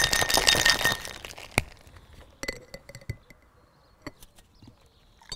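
Ice rattling hard inside a stainless-steel cocktail shaker as it is shaken, stopping about a second in. After that come a few sharp metallic clinks and taps as the shaker is opened and handled.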